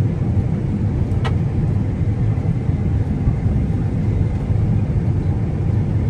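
John Deere combine harvester running with a steady low rumble, with a single sharp click about a second in.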